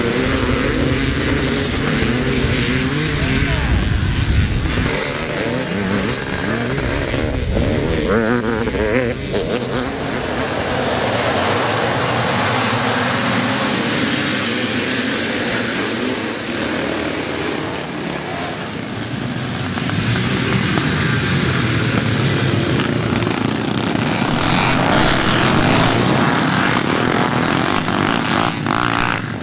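Several vintage twinshock motocross bikes racing, their engines revving up and down continuously as the pack accelerates away.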